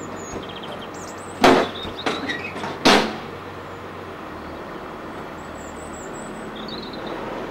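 Handheld camcorder knocked and bumped while being swung around: three loud sudden knocks about a second and a half apart in the first three seconds, with smaller rattles between, over a steady outdoor hiss. A few faint high chirps follow later.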